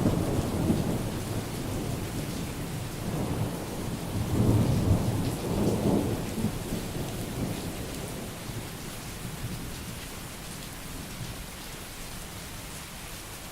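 Thunderstorm: steady rain with rolling thunder. A rumble fades in the opening seconds, swells again about four to six seconds in, then dies away, leaving the rain.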